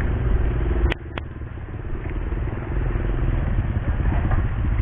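Steady low outdoor rumble with a noisy haze over it. About a second in come two sharp knocks in quick succession, followed by a brief drop in loudness.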